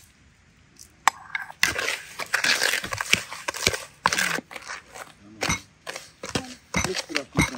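Metal spoon scraping and clicking against a plastic mixing bowl as egg yolks are beaten with sugar, the gritty sugar rasping under the spoon; a quick run of strokes, then slower, scattered ones from about halfway.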